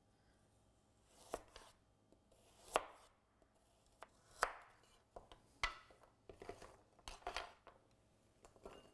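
A chef's knife slicing a peeled carrot into rounds on a plastic cutting board, each cut ending in a sharp tap on the board. The cuts come about once a second at first and closer together after about six seconds.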